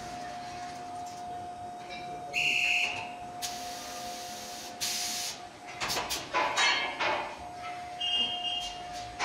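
Machinery of a bar-transfer powder-coating line at work: a steady hum tone underneath, a loud shrill hiss about two seconds in and a longer air hiss about three and a half seconds in, then a burst of metal clanks and rattles around six to seven seconds in, a short squeal near eight seconds and a knock at the end.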